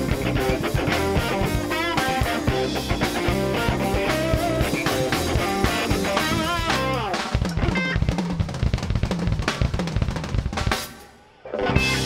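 Live electric blues band playing: an electric guitar solo with bent notes over drums and bass, then a passage carried by the drum kit. The band stops short about eleven seconds in and comes back in a moment later.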